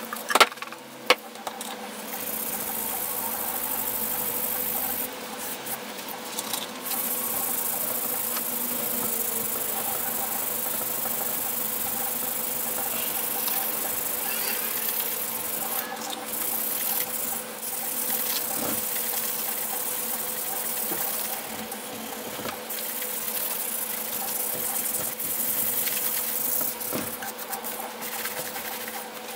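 Cloth and scouring pad scrubbing the metal housing of a Porter Cable BB10 belt sander with powdered cleanser: a rough rubbing hiss that stops and starts, over a steady low hum. Two sharp knocks within the first second or so.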